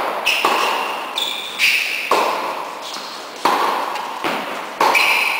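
Tennis rally: rackets strike the ball and the ball bounces on the court, about seven sharp impacts at an uneven pace. Each impact rings with a high ping and echoes in the large indoor hall.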